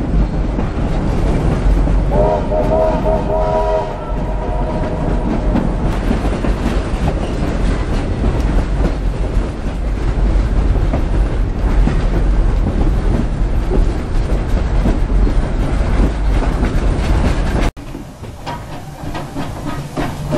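Heritage steam train carriage running along the track: a steady loud rumble with wheels clattering on the rails. About two seconds in, the steam locomotive's whistle sounds for about two seconds. Near the end the sound cuts abruptly to something quieter.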